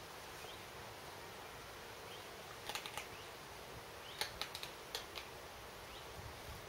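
A lynx chewing and tearing raw meat: a few sharp clicks and crunches near the middle, then a quicker run of them a little later, over a faint steady outdoor hiss.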